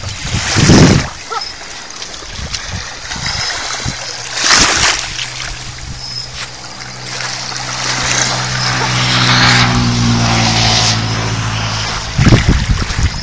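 Water splashing in the shallows around a hooked fish being reeled in, in two loud surges early on and near the middle. A steady low engine hum sets in about halfway and holds until near the end.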